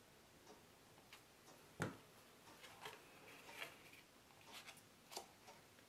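Near silence with faint handling noises of paper and craft supplies on a tabletop: one sharper tap about two seconds in and a few softer ticks later.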